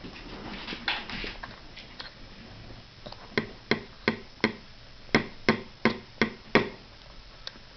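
Toddler's metal fork banging on a high-chair tray: two runs of four sharp knocks, about three a second with a short gap between, then one lighter knock near the end.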